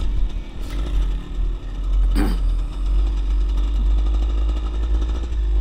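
Dirt bike engine running steadily at low speed over rough dirt, heard close up with heavy low wind rumble, and a brief falling sound about two seconds in.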